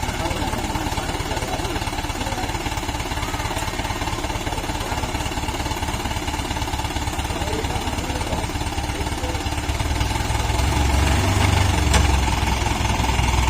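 Dump truck's diesel engine running with a fast, even clatter, getting louder and heavier about ten seconds in.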